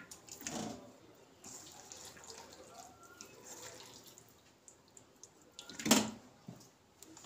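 Oily marinated chicken pieces sliding wet out of a steel bowl and dropping into an earthenware handi pot, with squelching as they are pushed down by hand. One louder knock about six seconds in.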